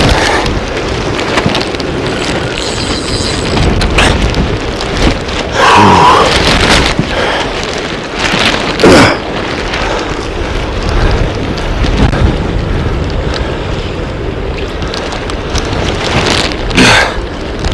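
Strong wind buffeting the microphone in a loud, constant low rumble, over the hiss of heavy rain. A few brief louder sounds stand out about six, nine and seventeen seconds in.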